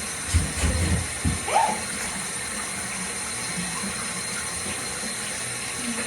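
Water running steadily from a tap or sprayer into a tub while a dog is bathed, with a few low thumps in the first second and a half and a short rising sound just after them.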